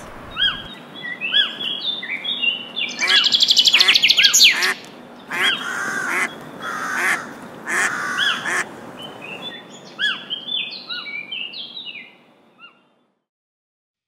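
A mix of bird calls: many short, arched chirps and twitters, with a fast trill about three seconds in and a few louder, harsher calls a few seconds later. The calls stop about two seconds before the end.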